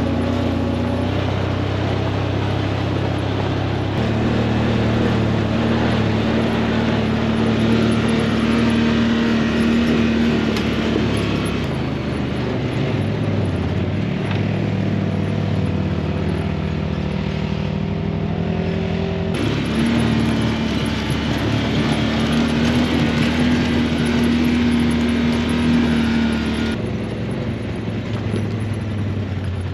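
Side-by-side UTV engine running as it drives a gravel mountain trail, its note rising and falling with the throttle, with tyre and wind noise. The sound changes abruptly a few times.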